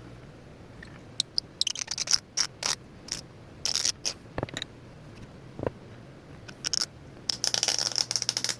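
Pipe reamer scraping carbon cake from the inside of a briar tobacco pipe bowl, in short irregular scrapes that begin about a second in and grow busier near the end.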